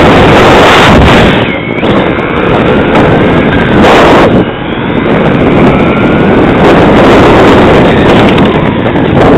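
On-board sound of a Tamiya TT-01 radio-controlled car driving fast over rough asphalt: a loud, distorted rush of wind on the microphone and tyre noise, with the electric motor's whine rising and falling as the car speeds up and slows. It drops away briefly twice, about a second and a half in and again near the middle.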